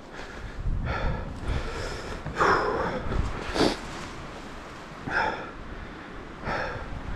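A man breathing hard from exertion, with gasping, half-voiced breaths and grunts about every second or so. The loudest come about two and a half and three and a half seconds in.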